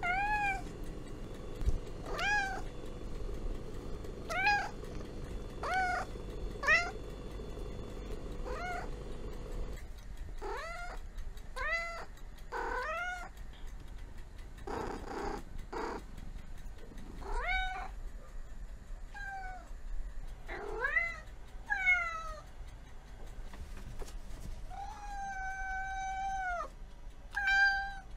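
Cat meowing again and again: short meows that rise and fall in pitch, one every second or two, with a rough noisy call about halfway through and a long drawn-out meow near the end. A low steady hum lies under the first third.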